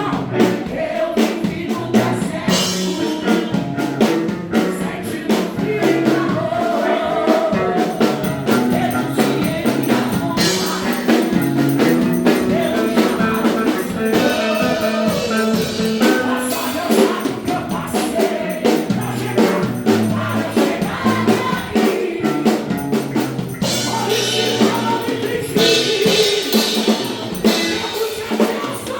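Music with singing and a drum kit beat, in the style of a worship song.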